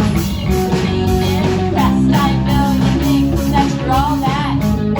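Rock band playing live, with guitar.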